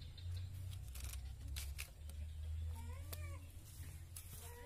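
A cat meows: one short call that rises and falls about three seconds in, and another, more drawn-out call starting near the end, over a steady low hum.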